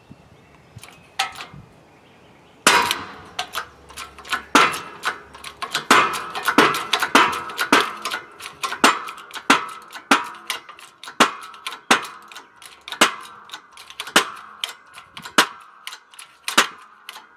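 A seized piston in a Studebaker Commander inline-six block being forced down its cylinder under a press, through a brass pipe and steel bar. After a couple of light clicks, a long run of sharp metallic bangs with ringing follows, about one or two a second, as the stuck piston gives way bit by bit.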